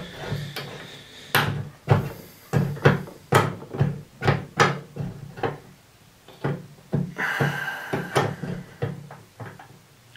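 Fly-tying bobbin and thread being worked around a hook held in a vise: a run of light clicks and taps, about two a second and unevenly spaced, as the thread is wrapped back and forth around the fly's dumbbell eyes.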